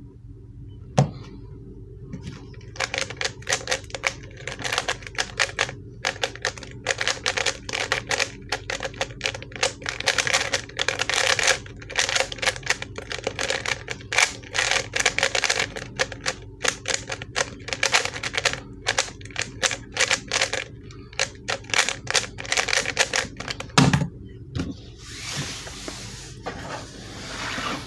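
ShengShou 3x3 speed cube turned rapidly through a speedsolve: a dense, fast stream of plastic clicks and scrapes from the layers, on a cube its owner finds very stiff to turn. A sharp knock comes about a second in, and another about four seconds before the end as the solve finishes and the cube is set down, followed by a brushing, rubbing sound.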